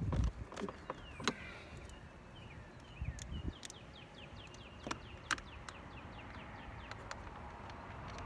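Scattered clicks and knocks of hands and a small tool working on a car's plastic door trim, with a thump at the start. Behind them a bird sings, a few falling sweeps and then a fast trill of short falling notes, about five a second.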